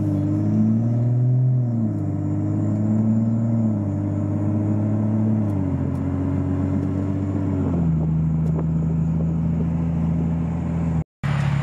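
BMW N55 turbocharged inline-six, freshly flashed with an MHD Stage 2+ tune, pulling gently under light throttle, heard from inside the cabin. Its pitch climbs and drops back about four times as the automatic gearbox upshifts.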